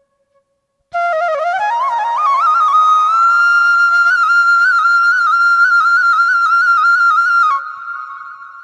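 Bansuri (Indian bamboo flute) playing: about a second in, a run of notes climbs step by step to a long, wavering high note, which stops suddenly near the end and rings away.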